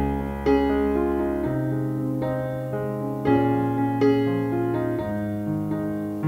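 Background piano music: slow chords and a melody, each chord struck and left to ring and fade.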